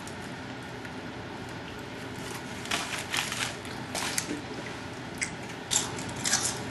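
Someone biting into and chewing a sub sandwich: irregular short crunching sounds starting a little under three seconds in.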